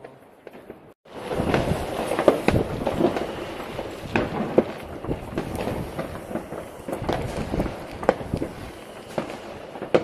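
Fireworks and firecrackers going off all over a town: a continuous rumble of many distant bangs and crackling, with sharper, louder cracks every second or so. It starts abruptly about a second in.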